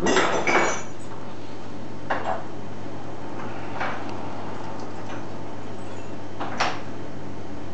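Metal darts clinking and knocking against each other: a quick cluster of clinks at the start, the loudest part, then single clinks about two, four and six and a half seconds in.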